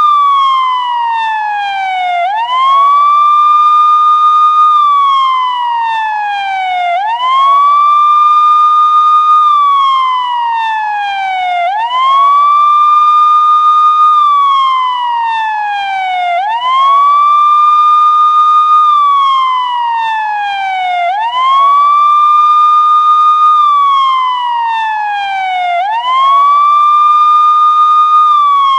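Police siren sounding a wail. Each cycle rises quickly to a high tone, holds it for about two seconds, then slides slowly back down, repeating about every four and a half seconds.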